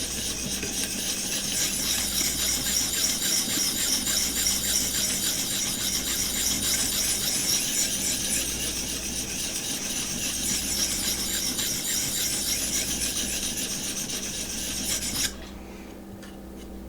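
Knife edge stroked rapidly and steadily back and forth across a sharpening stone in a guided sharpening system, a continuous rasping scrape that stops abruptly about a second before the end. This is the secondary bevel being ground until a burr forms along the edge.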